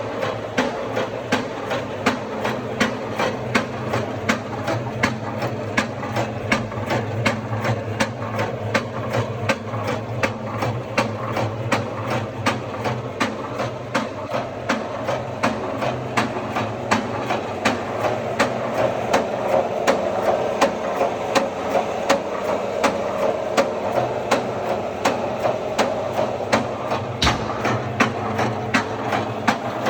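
Hilgeland PN4SP bolt pointing machine running, a steady mechanical hum with a regular sharp clack about two to three times a second.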